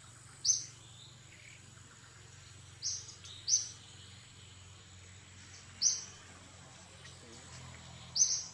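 A bird giving short, high calls, about five in all, repeating every two to three seconds over a steady high insect drone.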